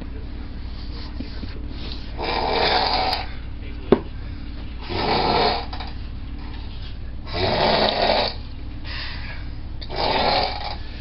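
A person snoring deeply: four loud, rough snores about two and a half seconds apart. A single sharp click falls between the first and second snore.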